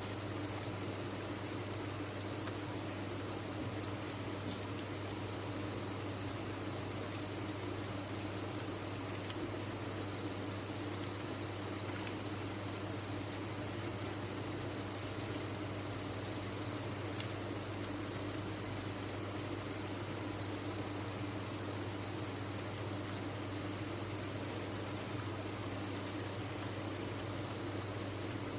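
A dense chorus of many captive crickets chirping together, merging into a steady, unbroken high-pitched trill. A faint low hum runs beneath it.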